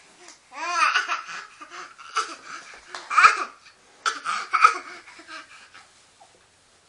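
A baby laughing and babbling in a handful of short vocal bursts over about five seconds, then falling quiet.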